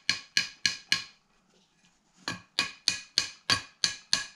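Light, quick metallic taps, about four a second, driving a small part into an Edelbrock Performer carburetor body. One run of taps comes, then a pause of about a second, then a longer run.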